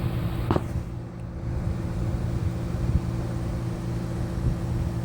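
1964-65 Fedders 8,000 BTU window air conditioner running with a steady hum from compressor and fan. A single click sounds about half a second in.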